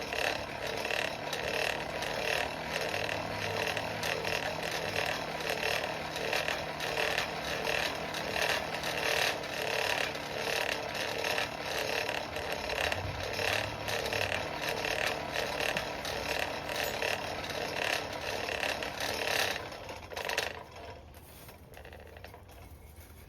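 Coal forge blower running, a steady mechanical whir with a fast rattling texture as it drives air into the fire to bring the chain link up to welding heat; it stops suddenly about twenty seconds in.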